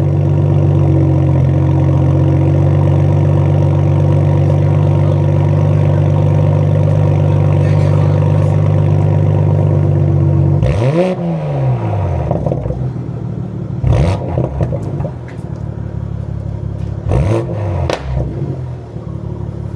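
2020 Toyota MKV Supra's engine running through a newly fitted Tomei titanium dual exhaust on the stock downpipe, held at a steady raised rev for about ten seconds, then dropped back to idle. After that come two short throttle blips and a few sharp clicks.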